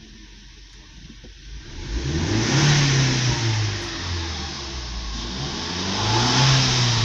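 Ford Mustang's 2.3-litre turbocharged EcoBoost four-cylinder, freshly rebuilt, idling and then revved up and back down twice, about two seconds in and again near the end.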